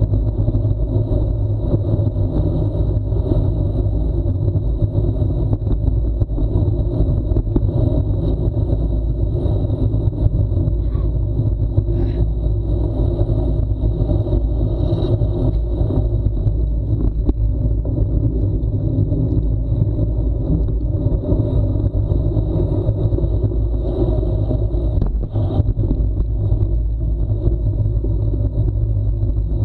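Steady low rumble of wind buffeting and tyre-on-asphalt noise picked up by an action camera riding along on a bicycle descending a paved road, with a couple of brief knocks about halfway through and near the end.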